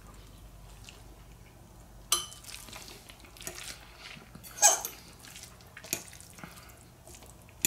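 A utensil clinking and scraping against a bowl of saucy ramen noodles as they are picked up and eaten, in a few short, separate sounds: a sharp clink about two seconds in, a louder one near the middle, and another soon after.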